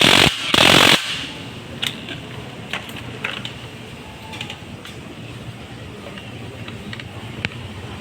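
Scattered light metallic clicks and taps of hand tools on motorcycle engine parts. A loud hiss-like noise fills the first second.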